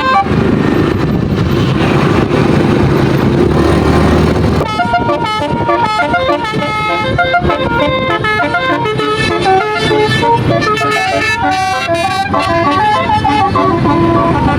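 A bus's Basuri telolet multi-tone air horn playing its quick melody of stepping notes, after about four and a half seconds of loud rushing noise.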